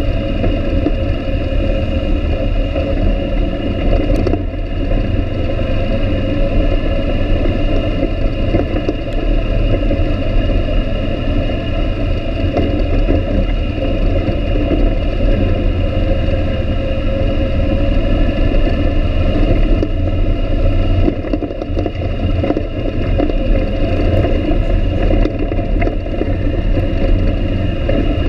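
Quad ATV engine running at a steady cruising pace while riding, a constant low rumble with a steady engine drone and no big revs.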